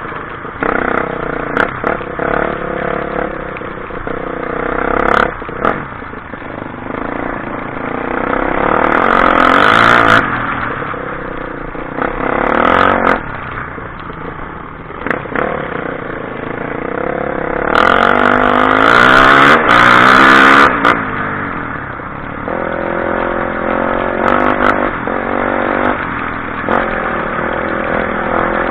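A motor engine running, its pitch rising and falling, with a few sharp clicks.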